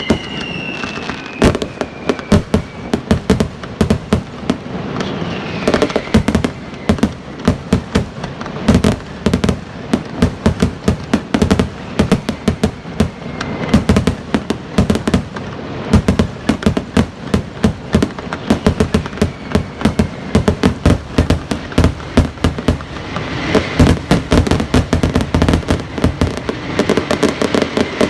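Fireworks display: a rapid, dense string of bangs and crackling reports, several a second, with two falling whistles in the first six seconds.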